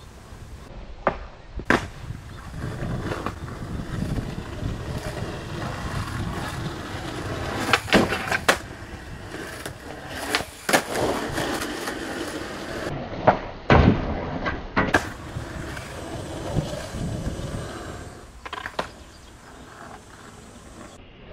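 Skateboard wheels rolling on rough asphalt with a steady rumble, broken several times by sharp wooden clacks of the board popping and landing during flip tricks, mostly in pairs about half a second apart.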